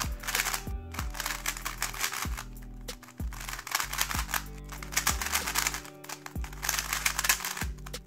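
Rapid, dense plastic clicking of a MoYu WeiLong WR M 2021 MagLev 3x3 speed cube being turned fast, over background music with a bass line.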